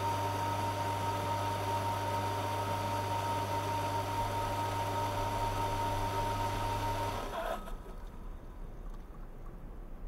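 Steady electrical hum of a small liquid-circulation pump and ultrasonic equipment running, with a deep mains-like drone, a clear tone and a hiss, switched off sharply about seven seconds in, leaving only a faint low rumble.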